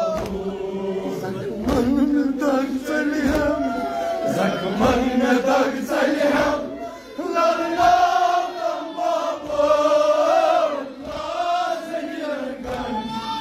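Men chanting a Kashmiri noha, a Shia mourning lament, together in a slow drawn-out melody, with regular sharp slaps of chest-beating (matam) about one a second.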